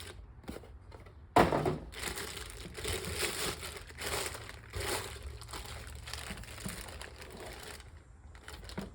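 Styrofoam packing being pulled off a boxed machine, rubbing and crinkling. A sharp knock about a second and a half in starts it, and it dies down near the end.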